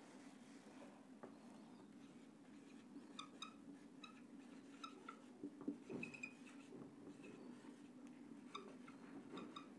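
Faint squeaks of a marker pen writing on a whiteboard, coming in short groups as the letters are drawn, over a low steady hum.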